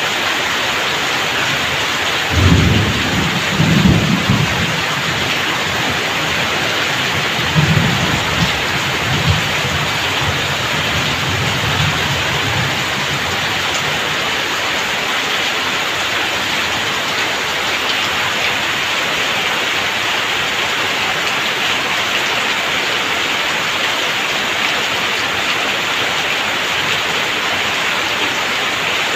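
Heavy rain pouring steadily off a roof's edge onto wet ground. Low rumbles of thunder come about two seconds in and again from about eight to twelve seconds in.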